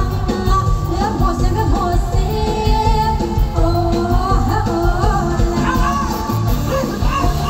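Live Thai mor lam band music: a steady driving beat with a sung melody over it.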